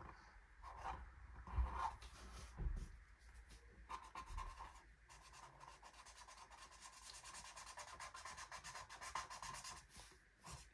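Felt-tip marker scribbling on paper, colouring in: a fast run of faint scratchy back-and-forth strokes, with a couple of soft low knocks in the first few seconds.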